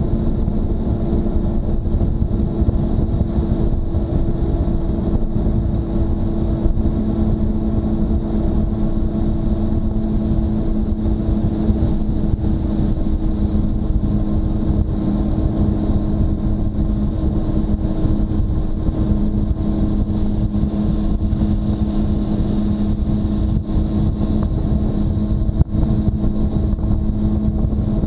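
Motorcycle engine running steadily at about 50 km/h, a constant hum with no revving, over road and wind rumble on the microphone.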